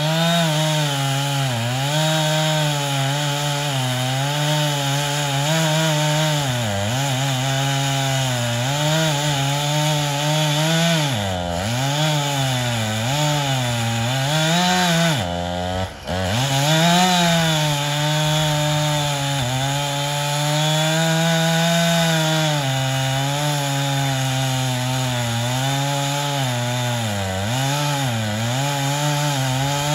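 Two-stroke chainsaw running at high revs while cutting into a tree trunk, its pitch sagging again and again as the chain bogs in the wood and picking back up between, with one deep drop about halfway through.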